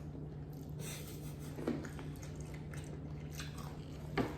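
Close-up chewing and biting into flour-coated chicken nuggets: scattered small crunches and mouth sounds, with two louder crunches about halfway and near the end, over a steady low hum.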